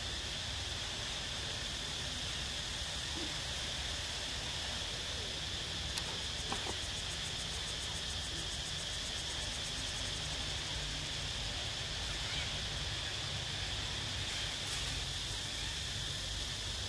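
Steady high-pitched insect drone throughout, with a fast, even ticking trill high up from about six to ten seconds in, over a constant low rumble.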